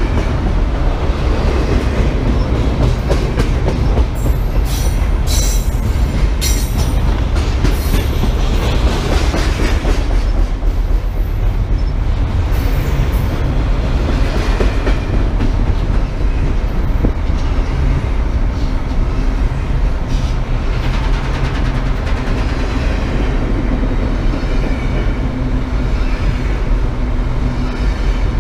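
BNSF freight train rolling past: a steady rumble and clatter of the cars on the rails, with a run of sharp wheel clicks about four to seven seconds in.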